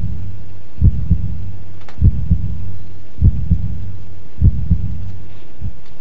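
Heartbeat sound effect: slow double thumps repeating about every 1.2 seconds over a steady low hum, the last beat coming near the end.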